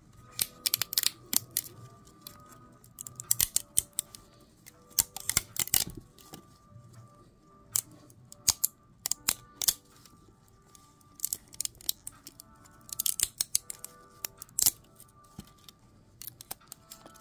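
Printed PLA plastic support structure snapping and crackling as it is pulled off a 3D-printed figure by hand, in clusters of sharp clicks with short pauses between them. Quiet lo-fi music plays underneath.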